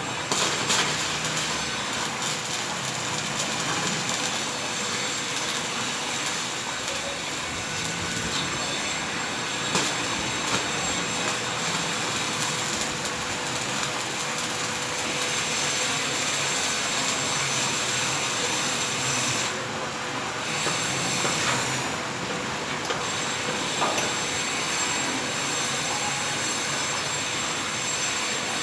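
Electric arc welding: a steady crackling hiss from the arc with a faint steady hum, the high hiss thinning out briefly twice about two-thirds of the way through.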